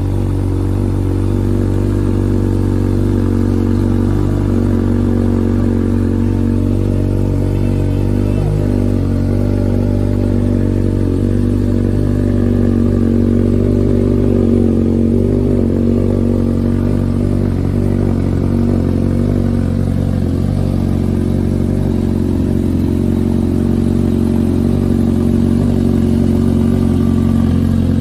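Suzuki Katana's 999cc inline-four engine idling steadily, an even hum that holds the same pitch throughout with no revving.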